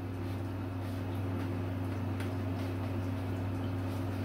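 Steady low electrical or mechanical hum in a small room, with a few faint light handling ticks.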